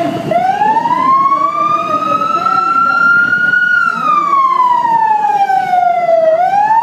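Vehicle siren wailing slowly. It rises over about three seconds, falls over about two and a half, then starts rising again near the end, over a low rumble of background noise.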